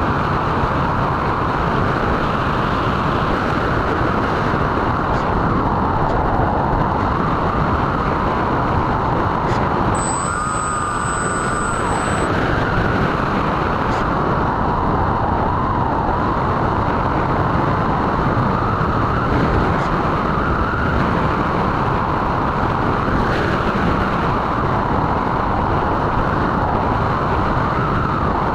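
Twin electric motors and propellers of a Multiplex Twinstar RC plane whining in flight, heard from aboard with wind rushing over the airframe; the whine rises and falls a little with throttle. A brief high-pitched tone sounds about ten seconds in, lasting roughly two seconds.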